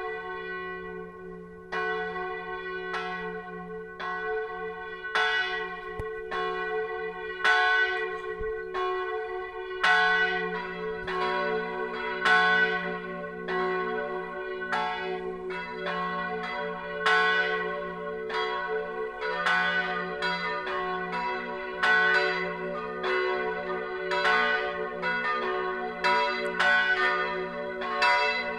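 Full peal of three church bells, tuned F sharp, B and D sharp and cast in 1582, 1604 and 1947, ringing together: clapper strokes fall about once a second in an uneven, overlapping rhythm, each followed by a long ring. Another bell's deeper hum joins about ten seconds in.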